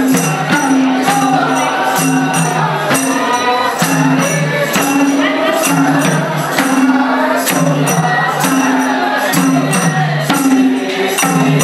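Sorathi folk music: a madal hand drum beating a steady rhythm with a repeating two-note bass pattern, under men's voices singing the song.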